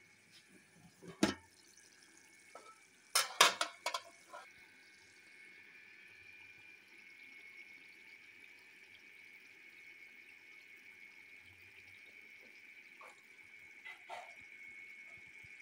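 An aluminium pot lid clanks a few times in the first few seconds as it is handled. Then the chicken curry simmers in the open pot with a steady, faint hiss.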